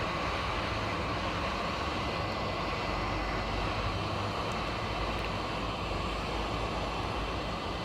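Hot air rework gun blowing steadily at a 450 setting, heating the solder on a laptop's power jack.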